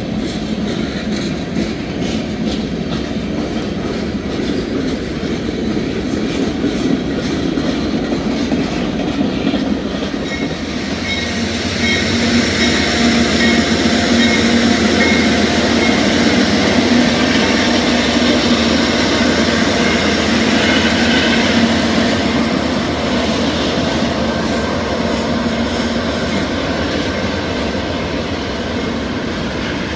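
Norfolk Southern manifest freight train rolling past close by: a steady rumble and clatter of freight-car wheels on the rails. Partway through it grows louder, and a steady hum joins for about ten seconds.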